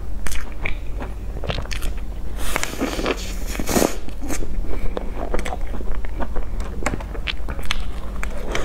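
Close-miked eating sounds: biting into and chewing a soft, crumb-coated cream bun, with many short wet mouth clicks and smacks, and a denser stretch of mouth noise lasting over a second about two and a half seconds in.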